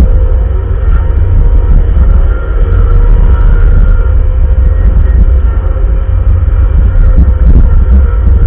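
Bobcat wheel loader's diesel engine running steadily under load while plowing, a heavy low rumble with a faint steady whine above it.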